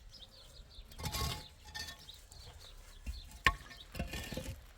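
Faint, repeated high chirps in the background, with a brief rustle about a second in and a single sharp knock or clink about three and a half seconds in.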